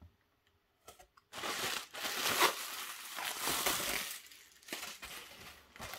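Cardboard box flaps and plastic air-cushion packaging rustling and crinkling as a shipping box is opened by hand. It starts about a second in after a few soft clicks, is loudest for the next three seconds, then goes on more softly with a single sharp click.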